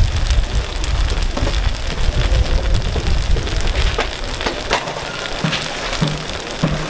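Takoyaki batter sizzling on a hot griddle, with sharp taps now and then. A deep low rumble runs under it for the first few seconds and stops about two-thirds of the way through.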